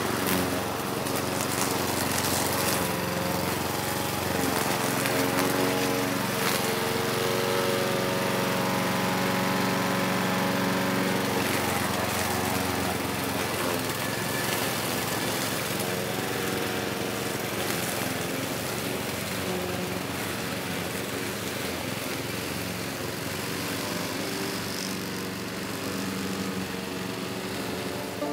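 Small petrol push lawn mower engine running steadily while it cuts grass.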